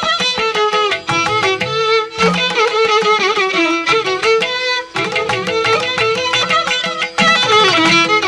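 Instrumental music: an ornamented melody over a steadily held drone note.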